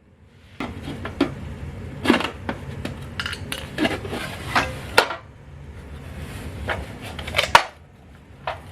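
Irregular sharp metallic clicks and clinks of a hand tool prying and working the old blower-motor resistor out of a heater box.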